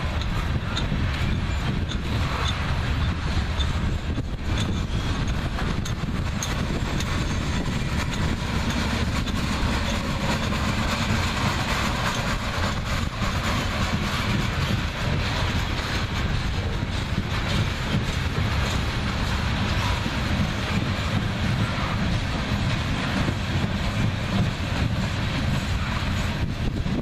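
Freight train cars rolling by: a steady rumble of steel wheels on the rail with some clicking over the rail joints.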